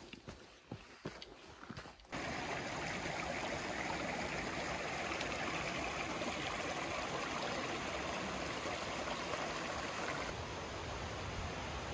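Scattered steps and knocks for about two seconds, then an abrupt switch to the steady rush of a mountain stream, which eases slightly near the end.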